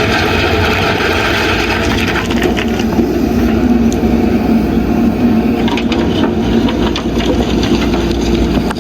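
JCB backhoe loader's diesel engine running steadily under load, with gravel and stones crunching and clattering against the steel bucket; the sharp clicks come more often in the second half.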